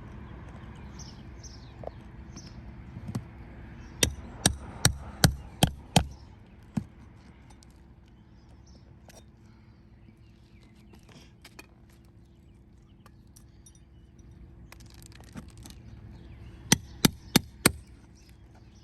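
Hammer blows during asphalt shingle removal: a quick run of six sharp strikes about half a second apart, a single blow after it, then a pause, then four more strikes near the end. A few faint bird chirps come in the first couple of seconds.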